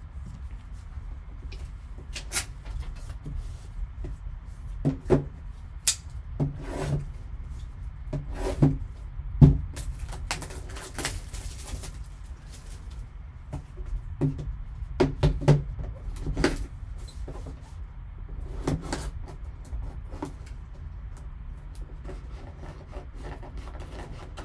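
A sealed cardboard trading-card box being handled and turned over on a table: a scattered series of sharp knocks and taps, with a short scraping rustle about halfway through, over a steady low hum.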